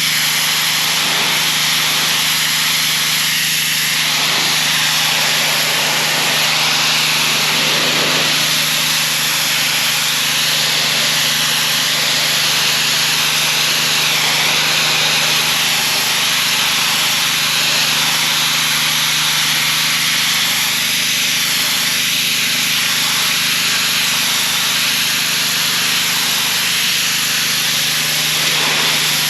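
Gasoline-engine pressure washer running steadily under load, its engine humming beneath the loud hiss of the high-pressure water jet spraying against the retaining wall.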